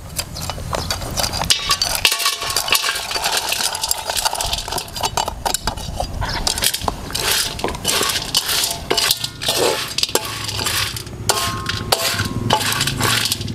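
Dry oil palm kernel shells being poured into a steel wok and stirred with a metal spatula: a dense, irregular rattling, clinking and scraping of hard shell pieces against metal as they are roasted over a high flame.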